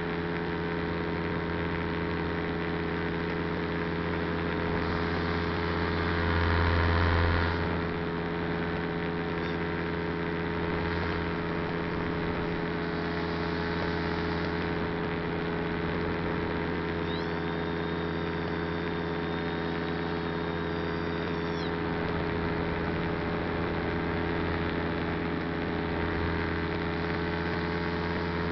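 Steady drone of the small motor on the aircraft carrying the camera, holding a constant pitch. About six seconds in, a louder rush of noise swells for a second or so and fades. Later a faint, thin high whistle rises in, holds for a few seconds and drops away.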